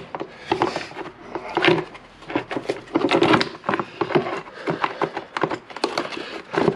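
Plastic motorcycle airbox being worked into place by hand: irregular knocks, clatters and scraping as it is pushed and wiggled against the frame and carburettor rubbers.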